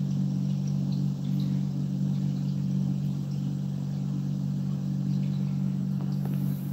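A steady low hum made of a few close, even tones, with no change in pitch or level.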